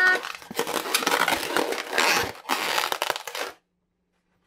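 An inflated long latex modelling balloon squeezed and twisted in the hands, the rubber rubbing and crinkling for about three and a half seconds, then cutting off suddenly to silence.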